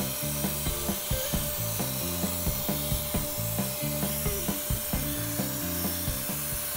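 Background music with a stepping bass line and a steady light beat.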